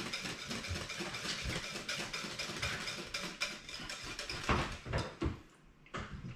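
Wire balloon whisk beating mayonnaise in a bowl: a fast, continuous clatter and scrape of the wires against the bowl. It breaks into a few separate knocks in the last couple of seconds.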